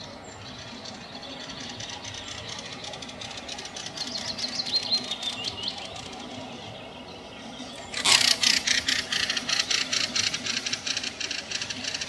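Nightingale singing: a run of quick descending whistled notes about four seconds in, then, about eight seconds in, a loud phrase of rapid clicking, rattling notes that keeps going.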